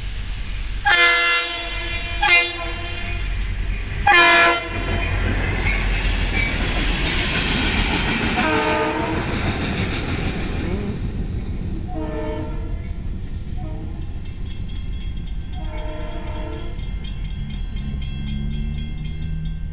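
Freight train locomotive horn sounding three loud blasts in the first five seconds, the second one short. The train then rumbles and hisses past over the crossing, with a few fainter horn blasts later as it moves off.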